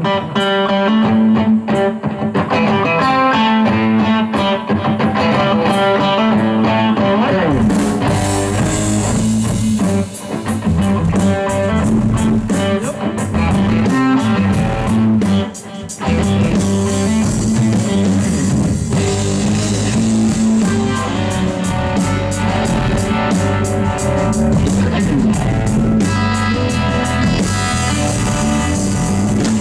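Live electric blues-rock trio playing: Stratocaster-style electric guitar over bass guitar and drum kit, with the drums' cymbals coming in about a quarter of the way through.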